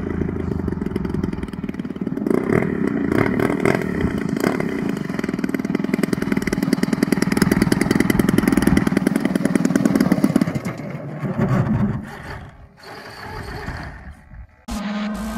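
GP178 gas engine on a large model aerobatic plane running at low, varying throttle as the plane taxis, then shut off and dying away about eleven to twelve seconds in. Music starts near the end.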